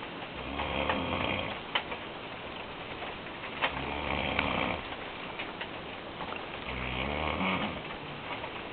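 A man snoring in his sleep: three long snores about three seconds apart. A couple of sharp clicks sound between them.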